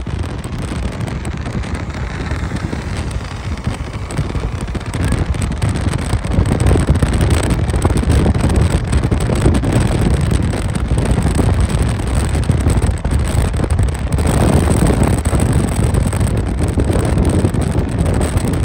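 Wind buffeting the microphone: a loud, gusting rumble heaviest in the bass, growing stronger about six seconds in and again around fourteen seconds.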